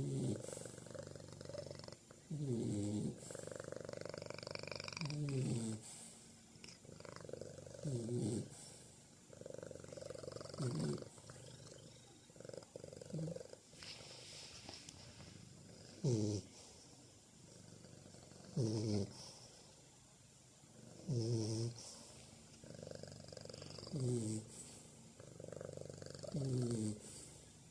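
Cat purring and bulldog snoring together in a slow, regular rhythm, with one loud breath about every two and a half to three seconds over a steady low hum.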